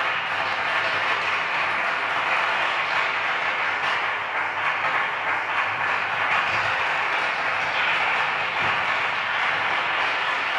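Steady, dense electronic noise like static, from the live electronics of a sound performance, holding at an even level with no breaks.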